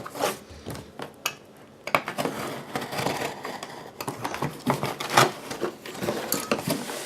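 Handling noises: irregular clicks, rustling and scraping, sparse for the first couple of seconds and then busier.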